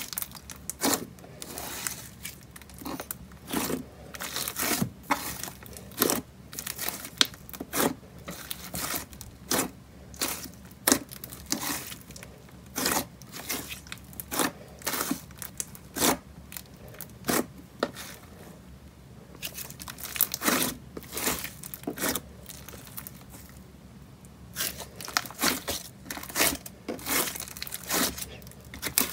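Ramen slime, glossy slime with clay noodles worked through it, being kneaded, folded and pulled apart by hand: a run of short, irregular crackling pops and squishes, thinning out briefly twice in the second half.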